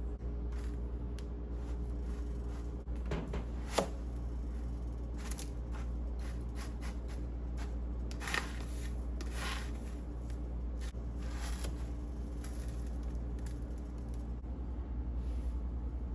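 Kitchen food-preparation sounds: scattered light clicks, taps and short scrapes or rustles, over a steady low hum.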